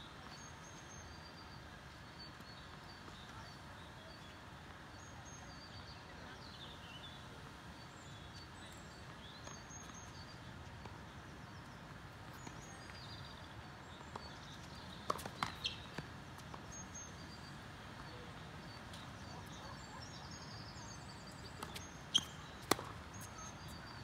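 Tennis ball struck by rackets and bouncing on the court: a cluster of sharp pops about two thirds of the way in and two more near the end. Birds chirp faintly over a steady outdoor background.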